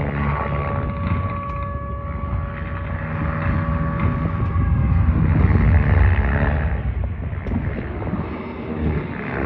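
Radio-controlled model helicopter flying: a steady whine from its motor and drive over rotor noise, rising and falling in pitch about five to seven seconds in.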